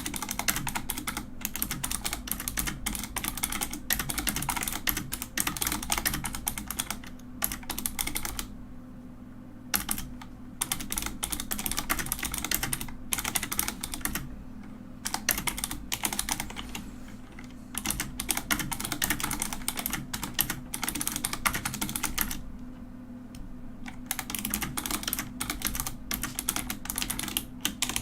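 Mechanical keyboard being typed on quickly, dense runs of key clicks and clacks broken by three short pauses.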